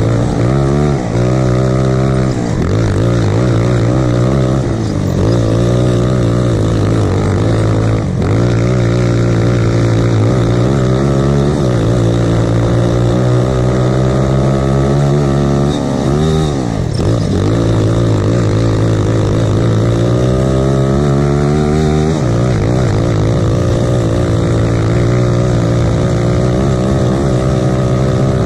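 Lifan single-cylinder four-stroke kart engine running hard under the driver, heard onboard. Its revs drop and climb again several times, most deeply about eight seconds in and around the middle.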